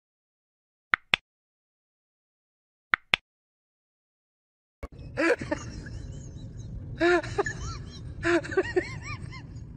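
Two quick double clicks of a mouse-click sound effect on a subscribe-button animation. A steady low outdoor rumble then comes in, with an animal's short calls rising and falling in pitch several times.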